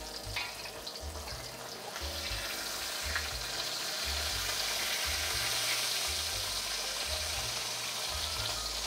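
Whole sea bream frying in shallow hot oil in a steel wok: a steady sizzle that grows louder about two seconds in as the fish is shifted and lifted with a spatula.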